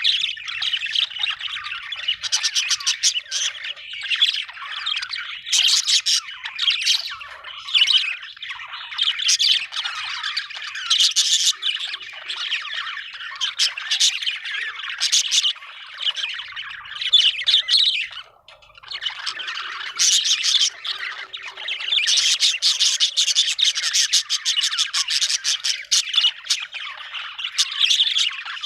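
Budgerigar (parakeet) chattering and chirping almost without pause, a busy warble of quick chirps, squawky notes and clicks, with a brief break about two-thirds of the way in.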